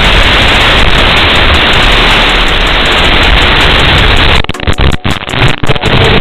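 Loud, even static hiss from an analog FPV drone's video-link audio. About four and a half seconds in it breaks up into choppy dropouts, then comes back.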